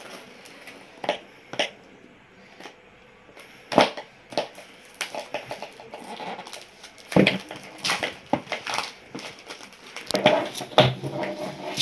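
Fingernails picking and scratching at a smartwatch's cardboard box to break it open, with irregular scrapes, crackles and rustles that get busier and louder in the second half.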